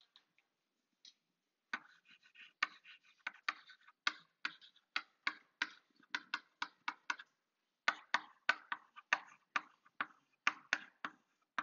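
Chalk tapping and scratching on a blackboard as words are written. It is a quick run of short strokes, about four a second, starting about two seconds in, with a brief pause about two-thirds of the way through.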